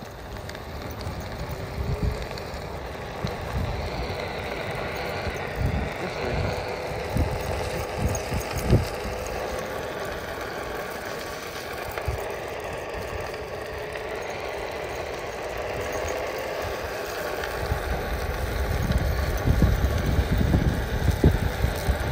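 Onewheel electric board rolling over asphalt, its hub motor giving a faint wavering whine. Gusts of wind buffet the microphone, heaviest near the end.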